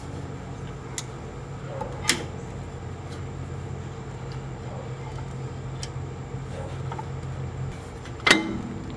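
A few sharp metallic clicks and clinks as a brake caliper is handled and seated over a cross-drilled, slotted disc rotor; the loudest clink comes near the end. A steady low hum runs underneath and stops shortly before that last clink.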